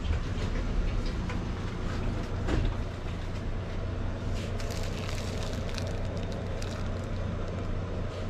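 Steady low hum of shop background noise, with handling clicks and plastic wrapping crinkling in the middle as goods in plastic bags are touched and lifted.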